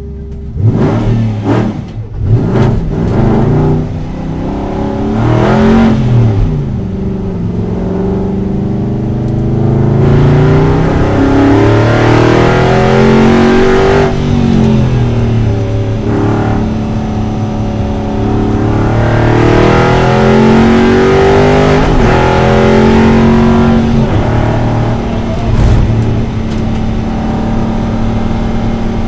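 Aston Martin Vantage GT4's V8 race engine heard from inside the cabin. It is revved sharply a few times at the start, then accelerates hard, its pitch climbing and dropping again and again as it shifts through the gears.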